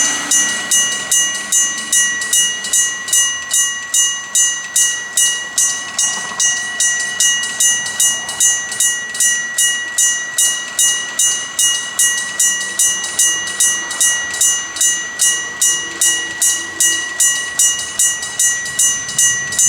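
Electric bell of a Japanese railway level crossing ringing steadily, about five strikes every two seconds: the crossing's warning signal that a train is approaching.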